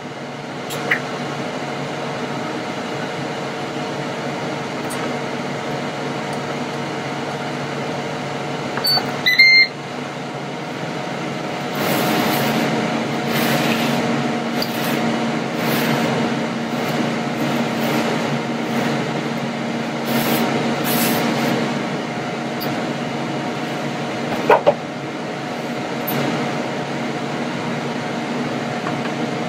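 Ninja dual-drawer air fryer running: a steady fan hum that grows louder about twelve seconds in, with a short sharp sound about nine seconds in and another near the end.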